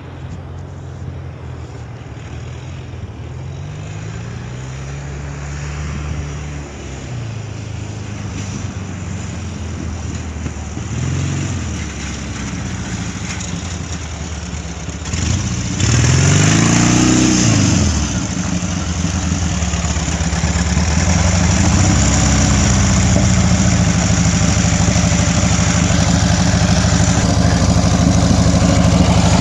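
Ural sidecar motorcycle's flat-twin engine, fitted with Keihin 40 CVK carburettors, revving up and down repeatedly as it rides across snow, then surging loudly as it rises and falls in pitch while passing close about halfway through. It then settles into a steady idle for the last part.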